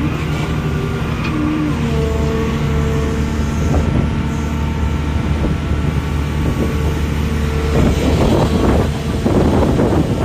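Diesel-type engine of an auger drilling rig running steadily with a deep hum. From about eight seconds in, a louder, rough, irregular grinding noise comes in.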